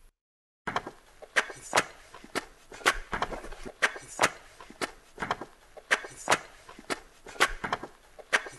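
A run of sharp knocks or taps at an uneven pace, about two or three a second, starting just under a second in after a moment of dead silence.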